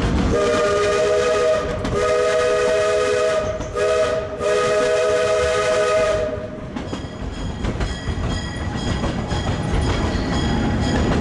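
Steam whistle of a 1936 Henschel coal-fired narrow-gauge steam locomotive sounding a chord of several notes in two long blasts, a short one and a long one, the pattern of a grade-crossing warning. Once the whistle stops, about six seconds in, the open car is heard rattling along, with wheels clicking over the rail joints.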